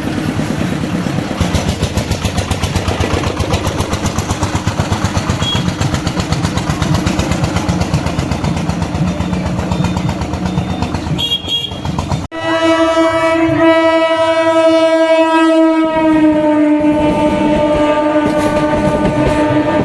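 ICF Medha EMU local train running past with a rapid, even clatter. After a brief break it sounds a long, continuous horn blast of several tones together, whose pitch drops slightly partway through.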